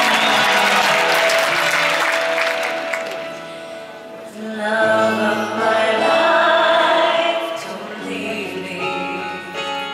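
Audience applause that dies away over the first three seconds, then a woman singing live over a strummed twelve-string acoustic guitar from about four and a half seconds in.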